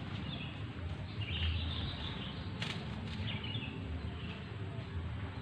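Birds chirping in short, scattered calls over a steady low hum, with a single sharp click about two and a half seconds in.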